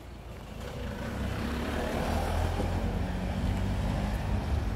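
A motor vehicle engine running: a steady low rumble that builds about half a second in and then holds level.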